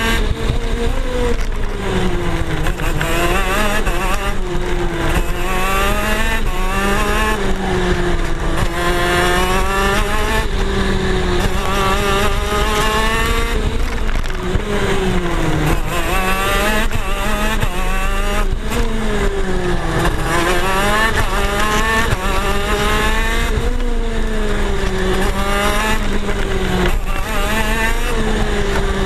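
KZ gearbox kart's 125 cc single-cylinder two-stroke engine at racing speed, heard close up from on board, its pitch climbing and dropping over and over as it accelerates out of corners and slows into them.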